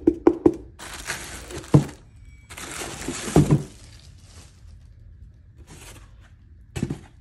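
Quick hollow taps on the plastic dumbbell base stop about half a second in. Packing material is then handled: two spells of rustling and crinkling, each with a dull thunk, and two short rustles near the end.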